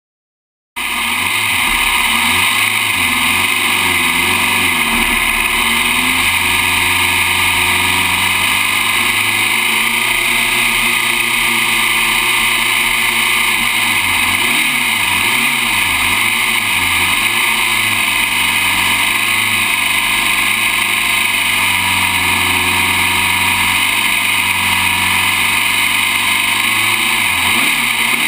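Historic open-wheel Grand Prix race car's engine running at low revs, heard from an onboard camera mounted on the car, with the revs rising and falling several times around the middle. The sound cuts in suddenly about a second in.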